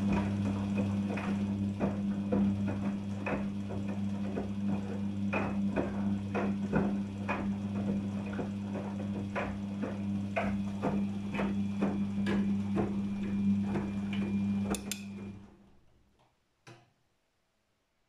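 Daewoo DWD-FT1013 front-loading washing machine tumbling a wet load in its wash cycle. A steady motor hum runs under irregular thuds of wet laundry dropping in the drum. The drum stops about fifteen seconds in, and a single click follows.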